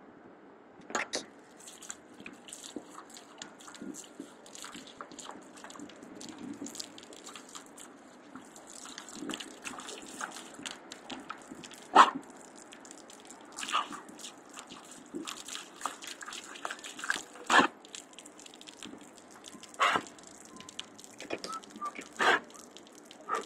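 A dog biting and lapping at a small water jet spraying up from a ground fountain grate: a steady spray of water with many irregular sharp splashes and snaps, the loudest about halfway through.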